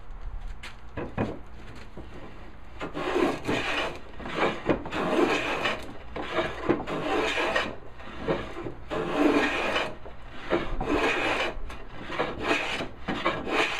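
A No. 6 hand plane taking repeated strokes across a walnut board, each stroke a scraping hiss of the blade shaving wood. The strokes come roughly once a second from about three seconds in, after a quieter start.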